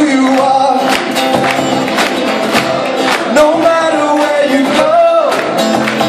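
A band playing a song: a sung melody with held, wavering notes over a steady drum beat.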